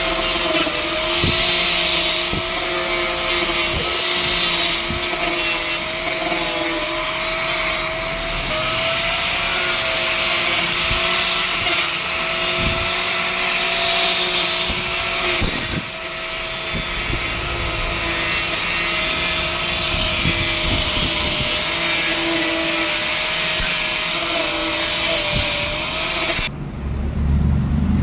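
Electric angle grinder with a polishing wheel working a welded steel pipe joint: a steady whine that wavers slightly in pitch as the wheel is pressed on, over a hiss. It cuts off suddenly near the end.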